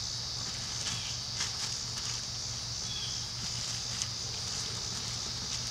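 A steady, high-pitched insect chorus, with a few faint rustles of a large plastic trash bag being handled.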